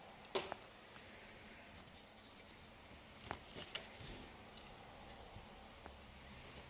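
Faint rustling of yarn and warp threads as hands work a rigid heddle loom, with a few light clicks from a wooden stick shuttle and crochet hook passing through the shed, the sharpest about half a second in and a cluster around three to four seconds in.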